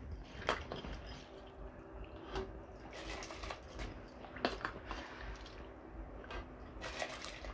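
Handfuls of soaked rice dropped into a steel pot of boiling spiced water. Soft splashes and wet squishes come at irregular moments over a faint, steady low hum.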